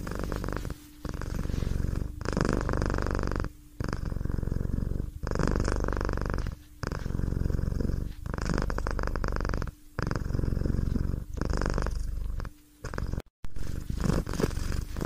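A cat purring in a steady rhythm of breaths, each stretch about a second and a half long with short pauses between. The sound cuts out briefly near the end.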